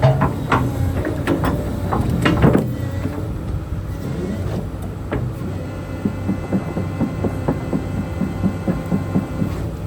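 Hyundai Robex 300 LC-9A excavator running, its engine humming steadily while the machine works, with several sharp metal clanks in the first few seconds and a run of light, regular clicking in the second half.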